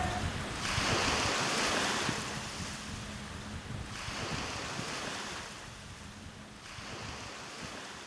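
A rushing, surf-like noise that swells and dies back about every three seconds and fades out gradually.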